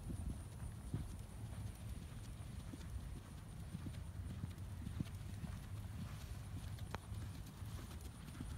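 Hoofbeats of a ridden horse cantering on arena sand.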